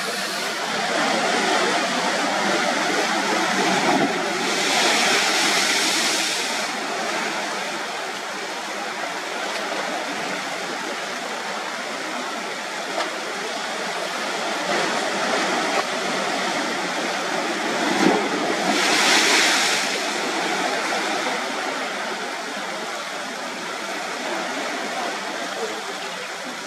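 Sea surf on a rocky shore: a steady rush of water, swelling twice, about five seconds in and again near nineteen seconds, as waves wash in.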